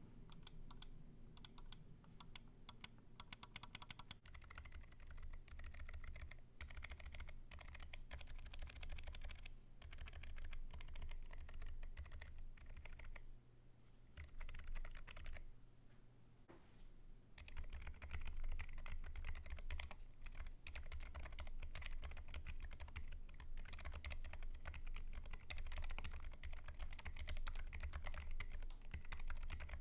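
Typing on a BM40 40% ortholinear mechanical keyboard with lubed Zilents V2 silent tactile switches, an anodized aluminium flat case, NP Simple keycaps and foam dampening. It is a steady run of keystrokes, with sharper, louder clacks in the first few seconds and a couple of short pauses about halfway through.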